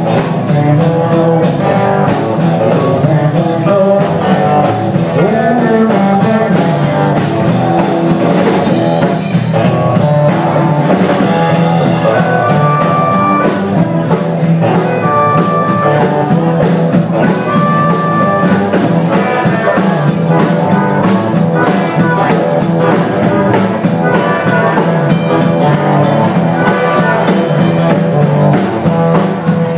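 Live blues-rock trio of electric guitar, electric bass and drum kit playing an instrumental passage, with a harmonica wailing long held notes about halfway through.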